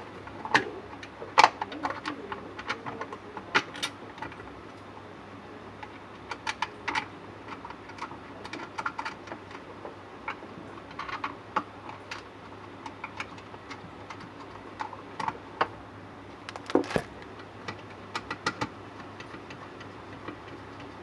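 Irregular light clicks and knocks from hand work, a few a second in loose clusters, with a sharper knock about a second in and another near the end.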